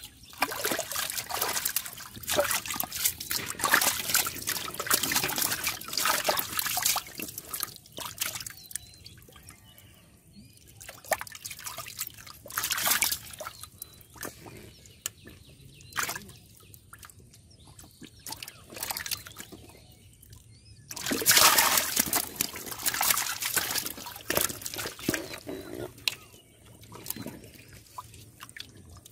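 Muddy water sloshing and splashing in uneven bursts as a hand gropes through a small water-filled hole crowded with catfish. The longest stretch of splashing is in the first several seconds, with another loud run about two-thirds of the way through.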